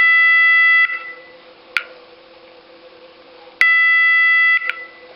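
Roshni electronic fire-alarm sounder giving a steady single-pitch tone that cuts off just under a second in and sounds again for about a second near the end: one of its DIP-switch-selected intermittent tone patterns. A sharp click comes in the gap between the two tones.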